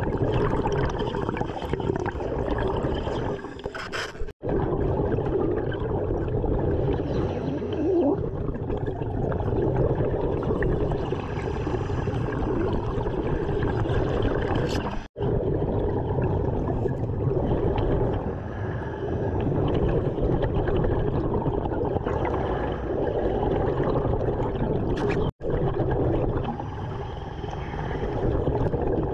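A diver breathing underwater through a regulator, with exhaled bubbles gurgling, in a rhythm of about one breath every four to five seconds. The sound cuts out abruptly three times.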